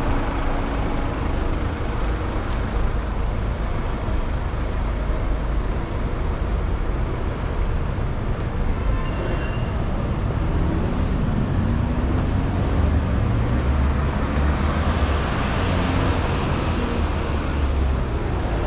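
Road traffic running steadily past. About halfway through, an engine's note rises in pitch as a vehicle pulls away, and a louder vehicle passes near the end.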